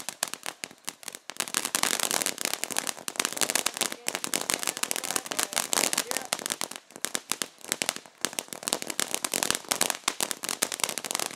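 Ground fountain firework spraying sparks with a dense, continuous crackling of many small rapid pops, easing briefly now and then.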